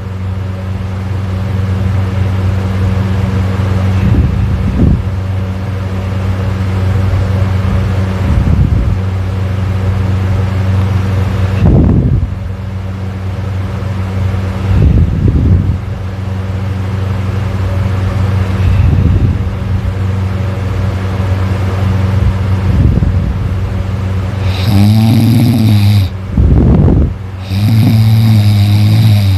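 A man snoring loudly in his sleep, a snore every three to four seconds over a steady low hum. Near the end come two longer snores with a wavering pitch.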